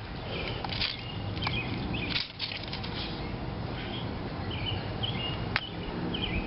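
Scattered clicks and light knocks of hand tools and brake parts being handled on a motorcycle's front brake caliper, over a steady low rumble, with a few short high chirps.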